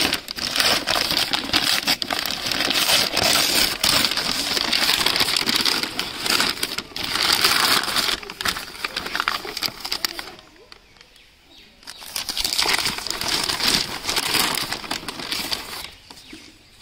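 Brown paper courier mailer being torn open and crumpled as a shoebox is pulled out of it: loud rustling and crackling of stiff paper, pausing about ten seconds in, then starting again.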